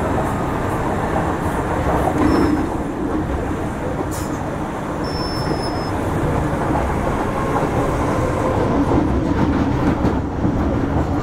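Metro-Cammell M-Train electric multiple unit running between stations, heard inside a motor car: a steady rumble of wheels on rail and running gear, with a few faint clicks and two brief high squeaks, about two seconds in and again about five seconds in.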